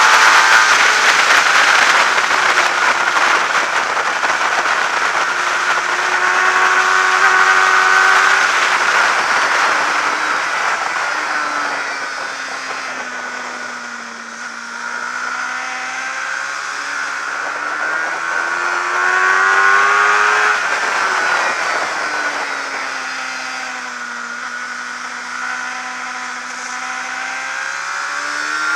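Suzuki GSX-R600 racing motorcycle's inline-four engine at race speed, heard from a camera mounted on the bike, with a constant rush of wind over the microphone. The engine note falls and climbs twice as the rider eases off into corners and accelerates out, with the lowest revs a little before halfway and again near the end.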